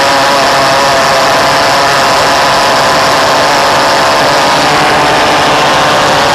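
Reed-valve pulse jet engine running at a steady pitch, a loud continuous drone.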